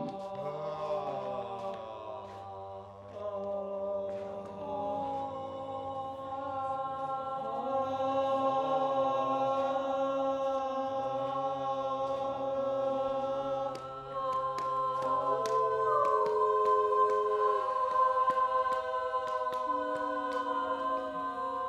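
A mixed group of men's and women's voices singing without accompaniment, holding long notes in several parts at once and moving to new notes every few seconds.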